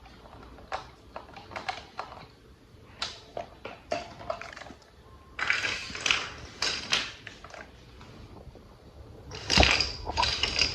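Plastic toy parts and packaging handled: a run of light clicks and knocks, then rustling bursts, the loudest about ten seconds in.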